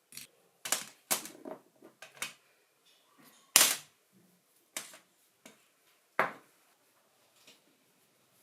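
A series of irregular sharp clicks and knocks, about eight in all, as hard parts and tools are handled and set down during hand work on a cordless drill; the loudest knock comes about three and a half seconds in.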